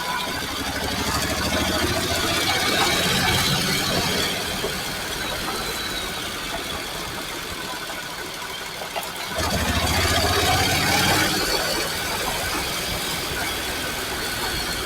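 Honda NC750X parallel-twin engine running under way, with wind and road noise around it. The engine note rises twice as the throttle is opened, first a second or so in and again about two-thirds of the way through.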